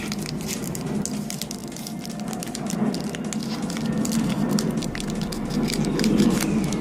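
Foil wrapper of a Pokémon TCG booster pack crinkling and crackling as it is handled and opened: a dense, irregular run of small crackles.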